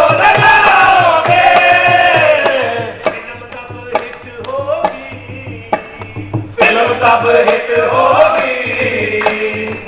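Qawwali music: voices holding long sung notes over a steady hand-drum beat. The singing fades about three seconds in, leaving mostly the drum, and comes back in at about six and a half seconds.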